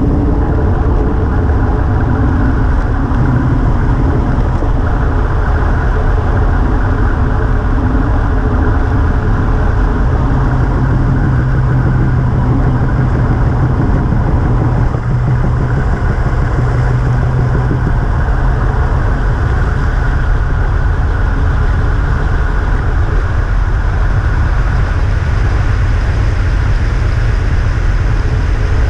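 Wind rushing over the GoPro's microphone as a road bike descends at speed: a loud, steady low rush, with a steadier low hum standing out for several seconds in the middle.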